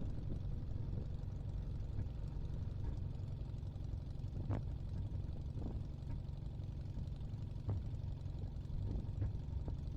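Small aircraft engine of a Minimax 1100r ultralight running steadily at low taxi power, a low drone with a few faint clicks.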